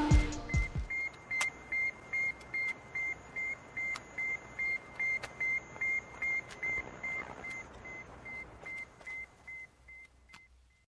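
The last notes of electronic music die away in the first second, then the beeping radio signal of Sputnik 1 sounds: a regular run of short high beeps, about two and a half a second, fading out gradually.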